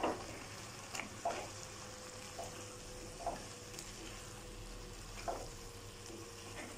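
Silicone spatula stirring chunks of bottle gourd and potato into masala in a nonstick wok, a few soft separate scrapes over a faint frying sizzle.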